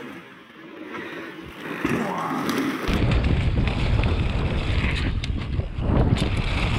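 Mountain bike riding down a rough downhill trail: wind buffets the camera's microphone with a loud low rumble from about three seconds in, over scattered clicks and knocks from the bike rattling over the ground.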